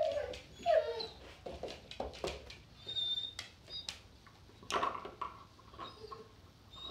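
Doberman puppy whining and whimpering in short, high, wavering cries over a new chew treat, with a few light clicks in between.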